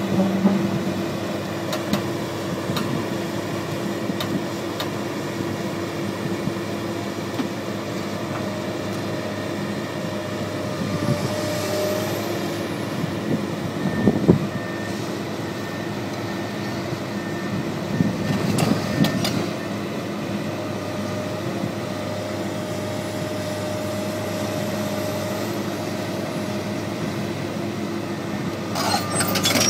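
Komatsu PC200LC excavator's diesel engine running steadily as the machine tracks down off a lowboy trailer, with a few metallic knocks from the steel tracks and bucket in the middle and a burst of track rattle and squeal near the end.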